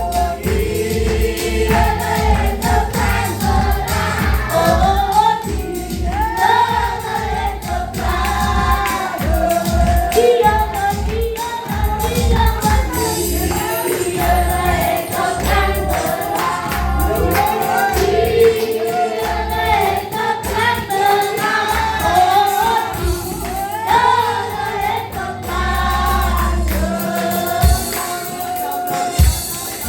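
A choir singing a gospel song over accompaniment with a pulsing low bass.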